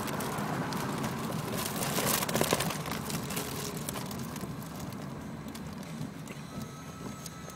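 Breathy hiss and rustle of helium being drawn in from a balloon held at the mouth, with the balloon rubbing and crackling against the microphone. It is loudest about two seconds in, then slowly fades.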